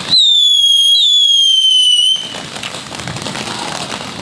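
Fireworks: a shrill whistle, falling slightly in pitch and starting afresh about a second in, stops suddenly after about two seconds. It gives way to the crackling hiss of a ground fountain firework spraying sparks.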